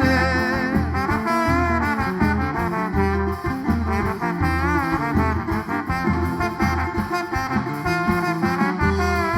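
Band playing an instrumental passage between sung verses: brass horns carry the melody over a pulsing bass line.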